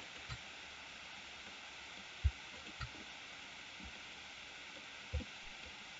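Faint steady hiss of a voice-recording microphone's background noise, with a few soft, brief knocks scattered through it.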